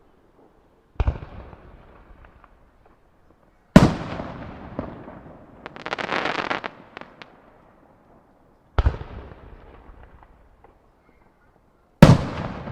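Aerial firework shells bursting four times, the second bang the loudest, each boom followed by a fading echo off nearby buildings. A spell of crackling comes a couple of seconds after the loudest burst.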